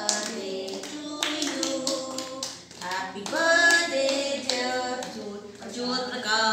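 A group of women and children singing a birthday song together and clapping their hands along with it.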